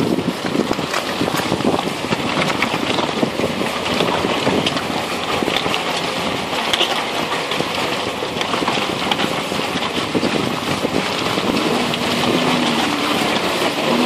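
Toyota Land Cruiser 4.5 VX driving along a dirt track: tyres crunching over dirt, stones and leaves, with many small ticks and crackles of grit, under rushing wind on the phone's microphone. A faint engine note comes up near the end.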